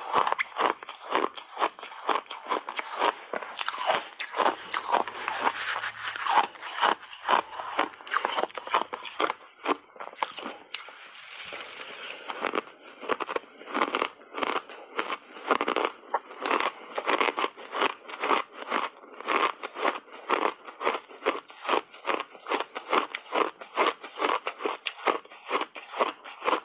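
Blended shaved ice being chewed in big mouthfuls: a steady run of sharp crunches, about three or four a second, with a softer, smoother stretch about eleven seconds in, and the spoon scraping through the ice in the bowl.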